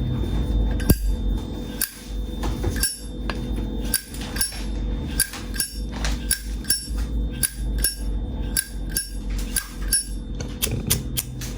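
Vintage 1979 Zippo lighter's lid flicked open and snapped shut over and over. Each is a sharp metallic click with a short bright ring, about two a second, coming faster near the end.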